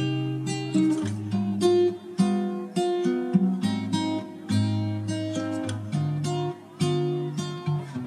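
Background music: an acoustic guitar playing a run of plucked notes and strums.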